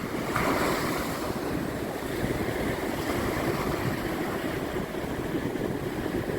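Waves and surf rushing steadily, with wind noise on the microphone.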